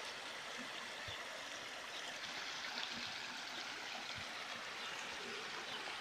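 Shallow stream running over stones and gravel: a steady rush and burble of water.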